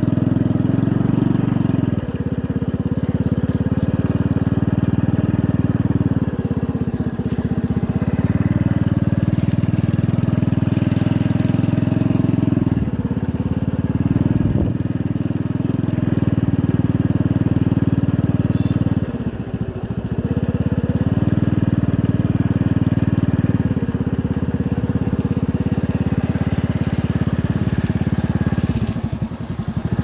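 A small motorbike engine runs steadily while riding. The engine note dips and slows briefly about five times, as the throttle is eased off.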